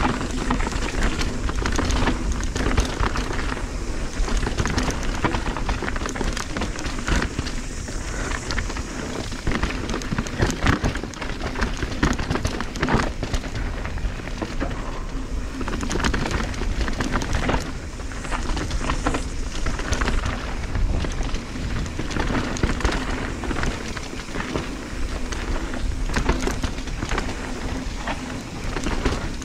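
Mountain bike descending a dirt trail: tyres crunching over dirt and stones and the bike rattling with constant small knocks, with a heavy wind rumble on the microphone.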